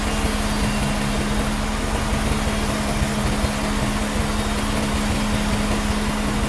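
Sawmill machinery running steadily: a constant low hum under an even mechanical rush, with no breaks or changes.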